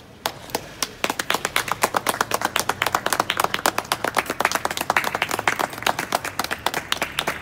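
A small group of people clapping their hands in applause, starting a moment in and carrying on as a dense, irregular patter of claps.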